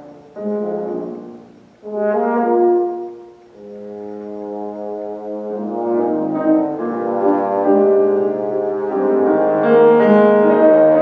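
French horn and piano playing classical chamber music. The horn plays short phrases separated by brief breaks, then settles into a continuous passage that grows steadily louder toward the end.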